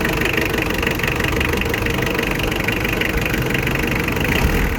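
Mitsubishi Adventure's 4D56 four-cylinder diesel engine idling steadily, having started on the first crank from cold now that its glow plugs are getting power again.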